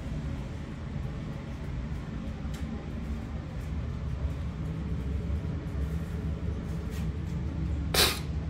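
Steady low rumble of indoor background noise, with a few faint ticks and one short, sharp noise near the end.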